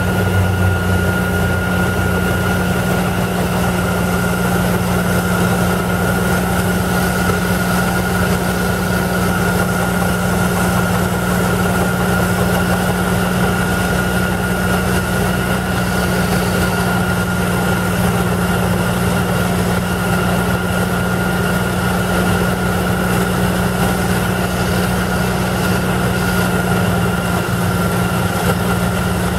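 Airmobil 432 pneumatic drilling rigs running on a rock slope with their compressed-air supply: a loud, unbroken machine drone with a steady low hum and a thin, constant high whine.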